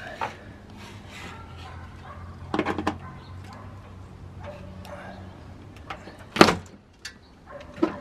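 A hand tool scraping and prying along the painted-over top of an old wooden window frame to cut through the paint holding it, with a short run of scraping clicks. About six seconds in comes a single sharp knock as the frame comes loose.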